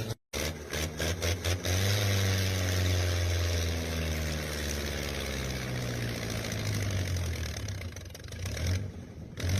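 Heavy diesel engine labouring under load: a steady low drone whose pitch sags slowly, thinning out near the end.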